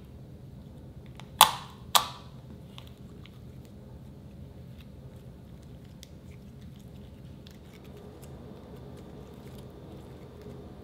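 Slime worked by hand: two sharp pops about half a second apart a second and a half in, then faint small clicks and squishes as it is stretched and kneaded.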